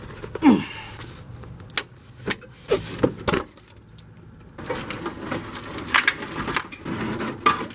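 Hand-tool and parts-handling noise under a car's hood: a short squeak about half a second in, then scattered metallic clicks and clinks as a wrench works a line fitting, and near the end a stretch of rustling and knocking as parts are handled and pulled.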